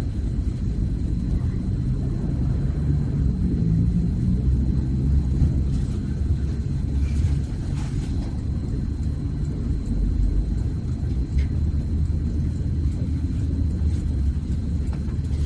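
Steady low rumble with a faint, thin high-pitched whine running through it.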